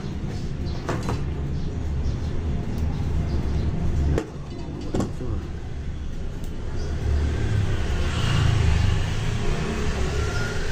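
A steady low rumble, with a few sharp clicks from pliers and wires being handled at a wall outlet box.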